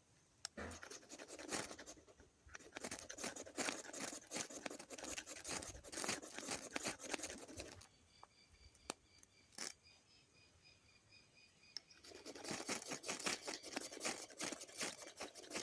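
Knife blade shaving and scraping wood in runs of quick strokes. The strokes pause for a few seconds past the middle, then start again.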